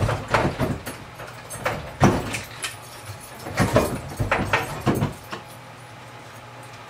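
Irregular knocks, clatter and rustling of close handling for about five seconds, then only a steady low hum.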